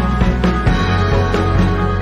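Background music with a bass line that changes note about two-thirds of a second in.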